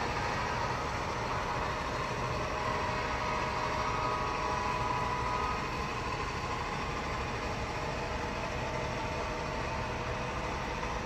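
Freight train cars rolling past with a steady running rumble, a faint hum riding over it.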